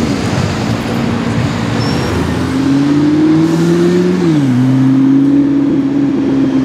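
McLaren P1's twin-turbo V8 accelerating at low speed. The revs climb for about two seconds, drop sharply at a gear change about four seconds in, then hold steady as the car pulls away.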